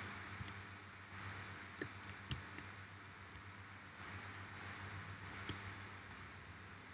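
Faint, scattered clicks of a computer mouse and keyboard, a few each second at irregular spacing, over a faint steady low hum.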